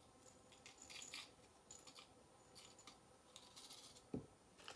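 Faint crinkling of a small plastic bag and light ticks as dried orange peel is handled, in a few short spells, with a soft knock about four seconds in.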